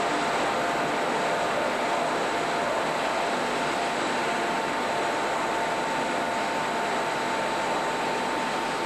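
Factory machinery running steadily: a continuous mechanical drone with a constant high whine over it.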